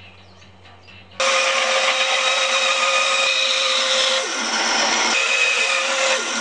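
Bandsaw cutting through a stack of laminated recycled skateboard decks: a loud, steady running noise of the blade in the wood that starts abruptly about a second in and shifts briefly about four seconds in. Before it, a faint low hum.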